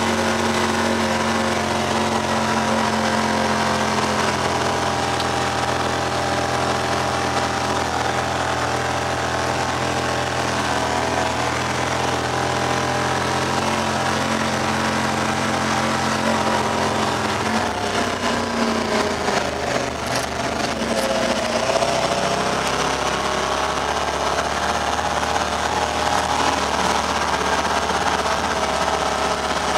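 Honda Pioneer 1000 side-by-side on snow tracks, its parallel-twin engine running steadily under way. About two-thirds of the way through, the engine note drops and then climbs again.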